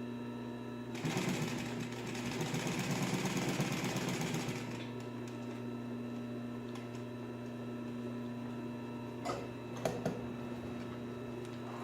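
Singer 111WSV14 triple-feed industrial sewing machine stitching fast through marine vinyl for about four seconds, then stopping. Its clutch motor keeps humming steadily throughout, and a couple of light knocks follow later.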